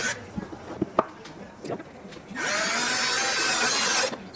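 A few knocks and clicks of tool handling, then a power drill runs for nearly two seconds, its whine rising as it spins up and then holding steady.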